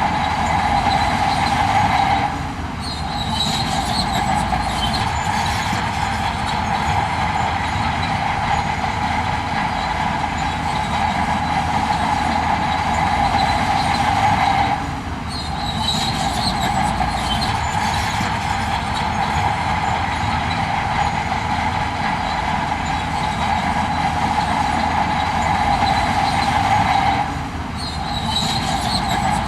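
Heavy construction machinery running continuously, with a steady mechanical drone and a sustained squealing tone over a low engine rumble. The sound eases briefly about every twelve seconds and then picks up again.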